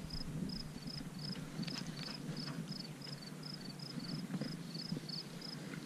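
A cricket chirping steadily: short high chirps, mostly in pairs, about three a second, with faint scattered clicks beneath.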